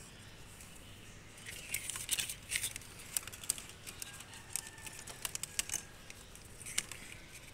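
Hands handling and routing thin insulated wires inside a plastic air cooler housing: light irregular rustling with small scattered clicks.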